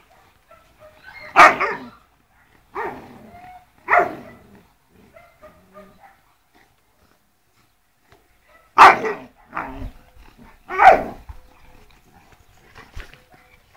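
Dogs barking during rough play-fighting between a Sarplaninac and Shar-Pei puppies: about six sharp barks in two groups of three, several seconds apart.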